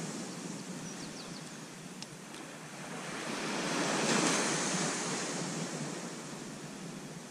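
Surf washing onto a sandy beach, a steady rush that swells to its loudest about four seconds in and then eases, with wind buffeting the microphone.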